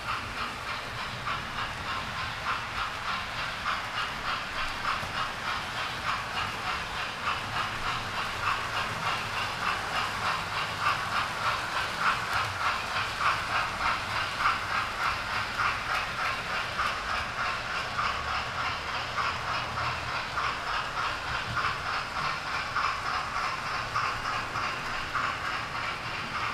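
Model trains running around a layout: a steady, fast clicking rattle of wheels on the track, a little louder in the middle.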